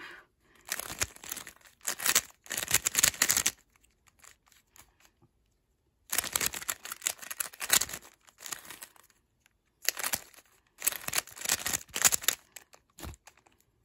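GAN 356 Air 3x3 speed cube being turned quickly in the hands: runs of rapid plastic clicking and clacking from the layers, in several bursts with short pauses between them. A dull knock comes near the end.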